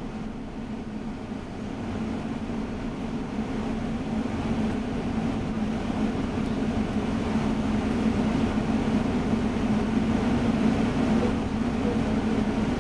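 London bus engine and cabin noise heard from inside the bus: a steady low drone that grows gradually louder.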